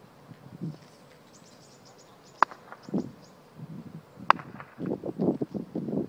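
Two sharp knocks about two seconds apart, followed near the end by a run of low, uneven scuffs like footsteps on asphalt, over a quiet open-air background.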